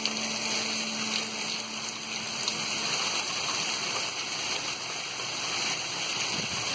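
Heavy rain pouring down as a steady, dense hiss, with a faint low hum under it that stops about halfway through.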